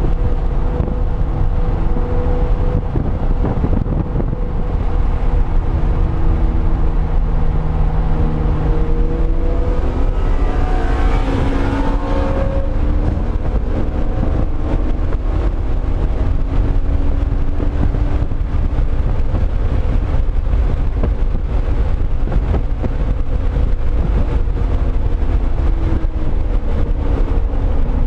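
2005 Pontiac GTO's LS2 V8 being driven hard, heard from inside the car, its engine note rising and falling as the driver accelerates and lifts, climbing steeply about ten seconds in.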